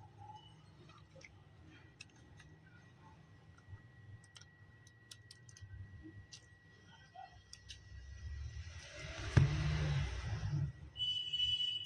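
Scattered light clicks and taps of small tools and parts being handled on a phone repair bench. About nine and a half seconds in there is a sharper knock followed by about a second of hiss. Near the end a steady high electronic tone starts.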